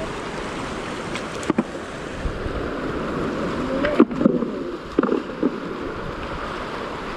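Shallow river rushing steadily over rocks, with a few short sharp knocks about a second and a half in and again around four and five seconds in.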